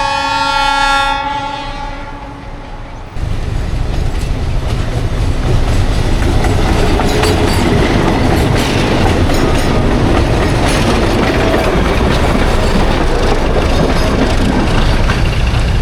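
Diesel train sounding one long horn blast for about three seconds, then passing close by with a sudden loud rumble of engine and wheels, clattering over the rail joints.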